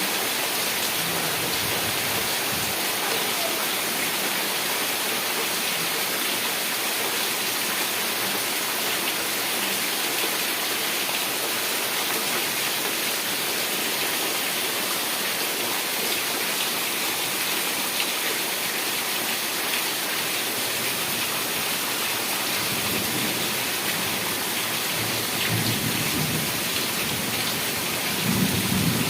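Heavy rain falling steadily, with a few low rumbles in the last few seconds, the loudest just before the end.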